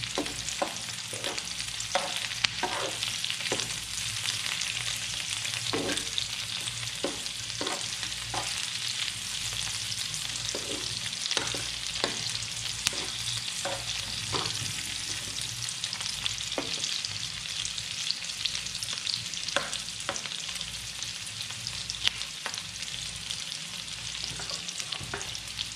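Sliced red onion, carrot and garlic sizzling in oil in a non-stick wok, with a metal spatula stirring and tapping against the pan. The taps come often in the first half and more sparsely later.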